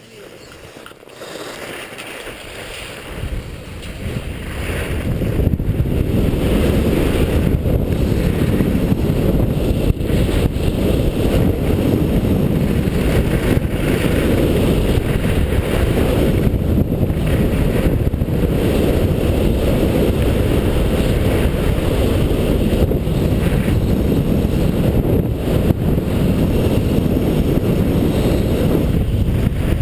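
Wind rushing over a helmet-mounted GoPro camera, mixed with skis running on the snow of a giant slalom descent. It builds over the first four seconds as the skier gains speed, then stays loud and steady.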